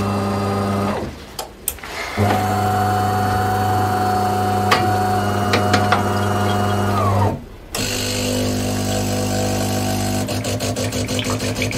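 Bean-to-cup coffee machine at work: a steady motor hum that stops about a second in, starts again a second later and winds down after about five seconds. After a brief pause a different steady hum begins and turns into a rapid pulsing near the end.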